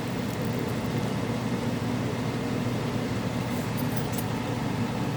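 Steady low mechanical hum, with a few faint clicks about four seconds in.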